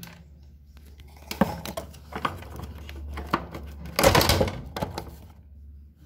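Plastic clicks and knocks from working a stiff wiring-harness connector off a washing machine's water inlet solenoid valve. Scattered single clicks, then a louder cluster of rattling knocks about four seconds in.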